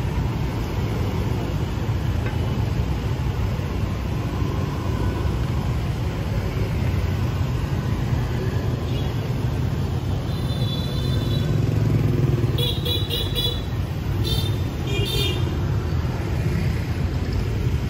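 Street traffic running steadily, a continuous low rumble of passing vehicles. Several short, high-pitched toots come in quick bursts in the second half.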